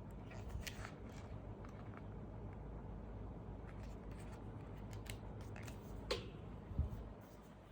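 Handling noises from unboxing a tablet and its accessories: scattered light clicks and taps over a steady low hum. A sharper click comes about six seconds in, followed shortly by a dull thump.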